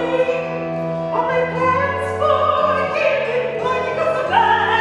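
Background music in a classical, theatrical style: sustained chords that change about every second or so.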